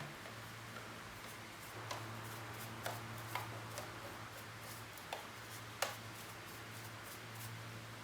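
Scattered light clicks and taps of a Roomba's plastic dust bin and filter being handled for cleaning, about six in all, over a low steady hum.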